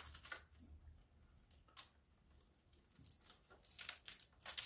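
Nylon zip tie being pulled tight, its tail zipping through the ratchet head in short, faint pulls: one at the start, one about two seconds in and a quick run of them near the end.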